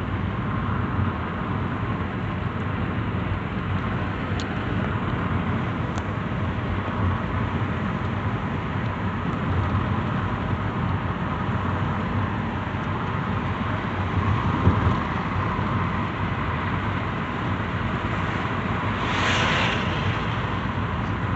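Car driving, its steady road and engine noise heard from inside the cabin, with a brief louder hiss near the end.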